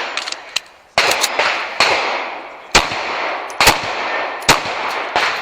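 Pistol shots fired one at a time, about five of them roughly a second apart, each trailing off in a long echo.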